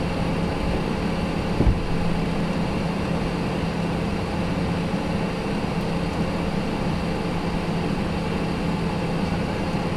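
Steady cockpit noise of a Cessna Citation Sovereign business jet in its climb after takeoff: engine and airflow noise with a steady low hum, and one brief knock about one and a half seconds in.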